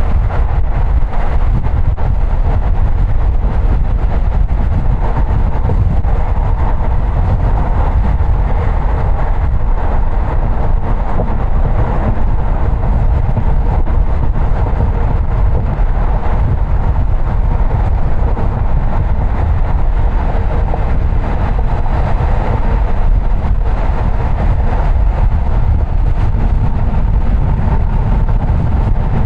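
Steady road noise of a car being driven: tyre and engine noise holding even, with no change in pace.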